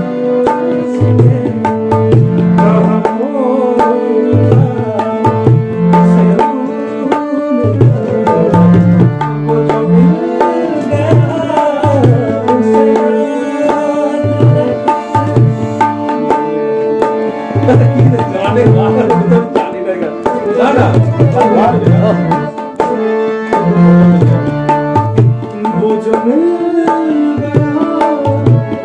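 Tabla playing a steady rhythmic pattern with deep bass-drum strokes, over a sustained drone, with a melody of gliding notes above it.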